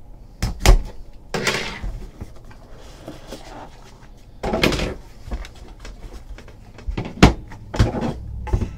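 Handling noises from a small cardboard box and a hard plastic graded-card slab: several sharp knocks and clacks, with two longer scraping, sliding sounds about one and a half and four and a half seconds in.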